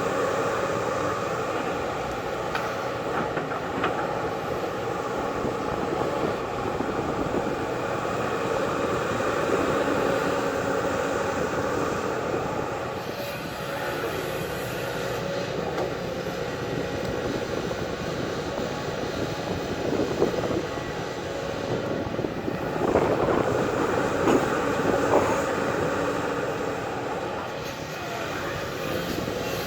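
Diesel engine of a JCB earthmoving machine running steadily, with a few sharp knocks about two-thirds of the way through.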